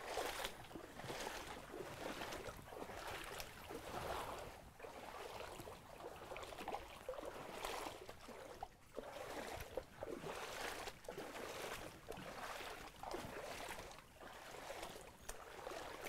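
Water sloshing and trickling in uneven swells, about one a second.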